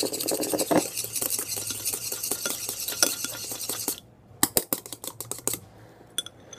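Chopsticks beating an egg in a ceramic bowl: a fast run of clicks against the bowl that stops about four seconds in, then a short second burst of strokes.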